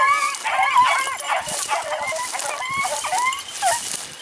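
A pack of beagles baying while running a rabbit: several dogs' short, rising-and-falling bays overlap without a break.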